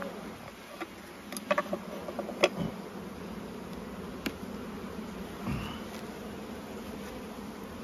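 Honeybees buzzing in a steady hum over an opened hive box, with a few light clicks and knocks as the wooden frames are worked.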